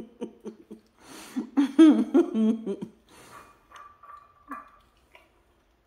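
A woman laughing: quick pulsed laughs, then a louder wavering, high laugh with breathy gasps, trailing off into faint breaths and dying away about five seconds in.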